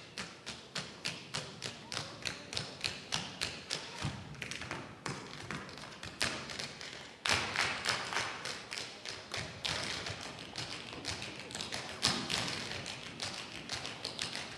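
Tap shoes striking a wooden stage floor, with no music: a steady beat of single taps about three a second, then from about seven seconds in a group of dancers tapping together in denser, louder rhythms.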